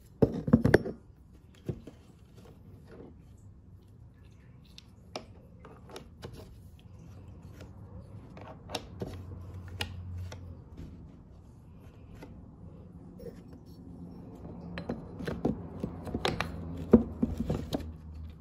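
Honda K-series steel rocker arms and shaft clicking and clinking as they are handled and refitted by hand: scattered light metal clicks, loudest in a burst at the start and again in a run near the end.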